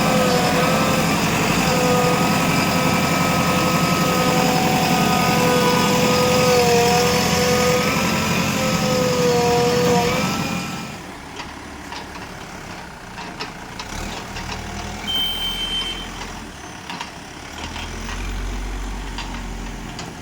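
Engine of a JCB machine running, with a loud, steady tone that shifts pitch in small steps playing over it for about the first ten seconds and then cutting off. A quieter engine with scattered clicks and clatter is left, and a low rumble swells near the end.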